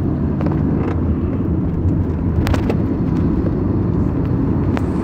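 Car driving slowly in second gear over broken, potholed asphalt, heard from inside: a steady low rumble from the engine and tyres, with sharp knocks and rattles as the car jolts over the holes, the strongest cluster about two and a half seconds in and another near the end.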